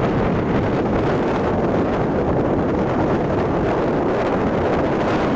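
Strong wind buffeting the microphone in a steady rumble, mixed with the wash of North Sea surf breaking on the shore.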